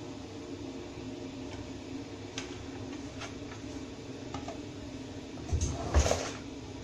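Kitchen handling noises over a steady low hum: a few light clicks, then a louder double clunk about five and a half seconds in.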